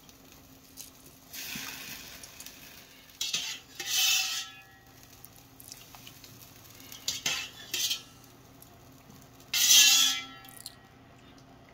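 A wire skimmer scraping and clinking against a stainless steel pot as cut potatoes are stirred in boiling water, in several short clattering bursts with a brief metallic ring. The loudest clatter comes about ten seconds in, as more raw fries are tipped from a metal bowl into the pot.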